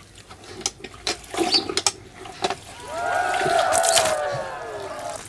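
Water pouring and gurgling as clothes are washed by hand, after a few scattered knocks and clicks in the first couple of seconds.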